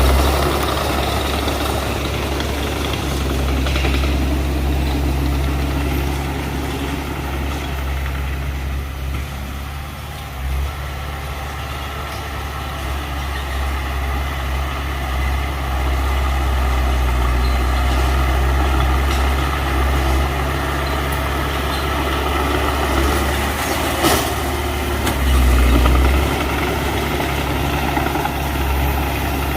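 Heavy earthmoving machine's diesel engine running steadily, swelling briefly at the start and again near the end, with one sharp knock shortly before the second swell.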